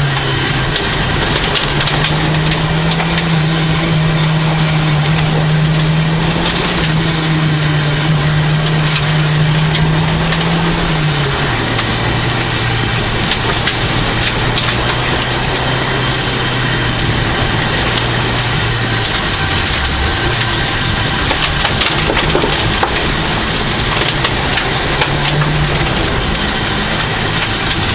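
1989 Toyota Celica GT-Four's turbocharged four-cylinder engine running hard at speed over constant road noise. It holds one steady note, drops to a lower steady note about eleven seconds in, and is less even over the last third.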